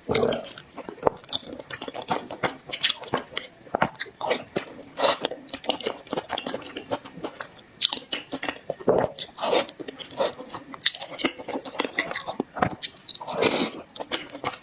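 Close-miked eating sounds: a person chewing and biting food, with many irregular crunchy, sticky mouth clicks and a few louder bites.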